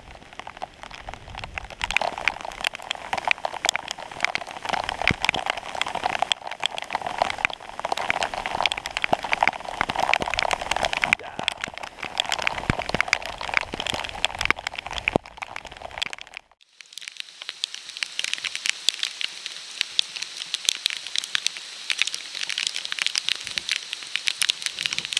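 Heavy downpour: dense pattering of raindrops close by. About sixteen seconds in it switches abruptly to a higher, thinner hiss of rain.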